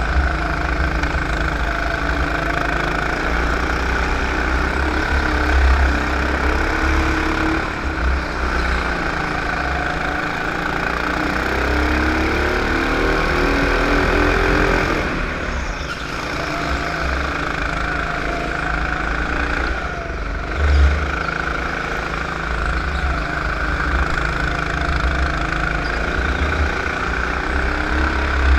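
Racing kart engine heard from on board at speed, its pitch climbing as the throttle opens and dropping away when the driver lifts for corners. Two brief louder low thumps stand out, one about six seconds in and one about twenty-one seconds in.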